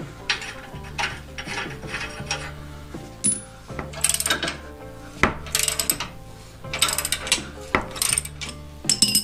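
Socket-wrench ratchet clicking in short bursts of strokes, about every half second to a second, as it loosens the bolts holding a truck's front tow hook.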